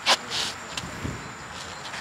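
A shoe scrapes on sand-surfaced bitumen roofing membrane once or twice near the start. Under it runs the steady hiss of a gas roofing torch burning.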